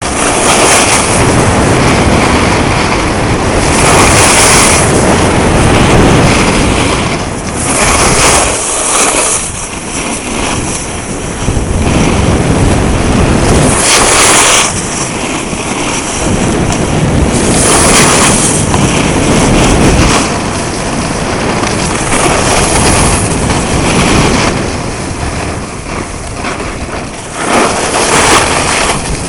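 Loud rushing noise of skiing downhill: wind buffeting the microphone and skis scraping over hard-packed snow, swelling into brighter surges every few seconds.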